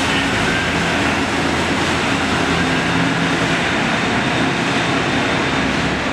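Steady engine noise from a transit bus and a pickup truck moving off through the busway tunnel, with a low hum throughout.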